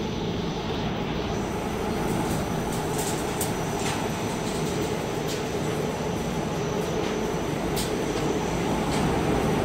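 Machinery of a sawdust rotary-drum drying line running steadily: a continuous mechanical drone with a few faint clicks.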